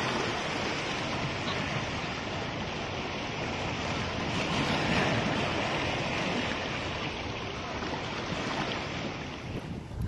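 Ocean surf: waves washing and breaking in a continuous rush, a little louder about halfway through and easing slightly near the end.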